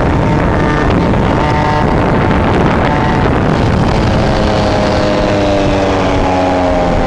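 Small 50cc two-stroke engine of a moped-class bike running at speed, heard from the moving bike with heavy wind rush on the microphone. Its pitch holds fairly steady, then falls slowly from a little past halfway as the bike eases off.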